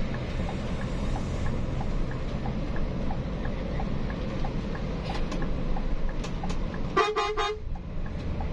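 Steady engine and road rumble of a moving intercity bus, then one short horn blast about seven seconds in.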